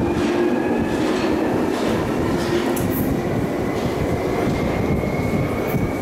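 London Underground Jubilee line 1996 Stock train departing into the tunnel: a steady rumble of wheels on rail with a thin motor whine that rises slightly in pitch as it pulls away.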